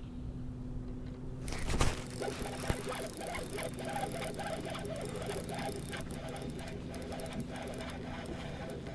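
A hooked largemouth bass splashing and thrashing in the water beside a kayak, starting suddenly about a second and a half in, with a sharp splash soon after and a run of quick rattling splashes near the end.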